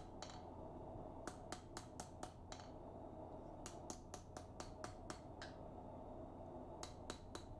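Hand hammer striking a hot knife blade of forge-welded railroad spike and farrier's rasp on a chain-wrapped anvil: faint, short, sharp blows in three runs of about four a second, with little ring.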